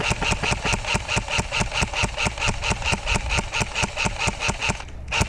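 An engine idling steadily, its beats coming about five a second, with a brief dip near the end.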